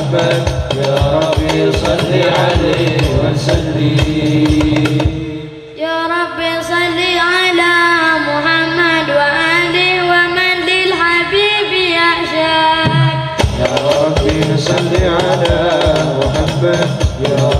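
Sholawat sung by men's voices over a hadrah ensemble's frame drums beating a steady rhythm. About five seconds in, the drums drop out and a long, ornamented vocal line is sung unaccompanied for about seven seconds. Then the drums and singing come back in.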